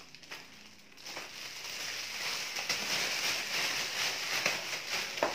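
Clear plastic wrapping crinkling and crackling as hands handle and unwrap it. The rustle starts about a second in and goes on unevenly.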